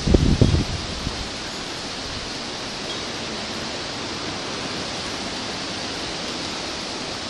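Severe wind storm, a steady rushing hiss of high wind. Low buffeting of wind on the microphone in the first second.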